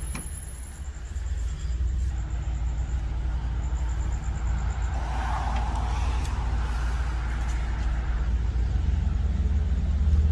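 Motorcycle engine idling steadily, a deep low sound that gets a little louder about a second and a half in.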